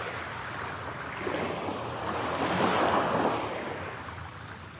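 Ocean waves: a rushing wash of surf that swells to its loudest about two to three seconds in, then fades.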